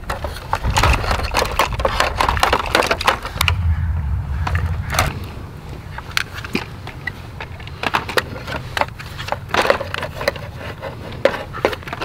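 Plastic loader bucket of a Bruder JCB toy backhoe scraping and scooping loose soil, with soil spilling into a plastic toy dump truck bed and many small plastic clicks and scratches. A low rumble comes and goes near the start and about four seconds in.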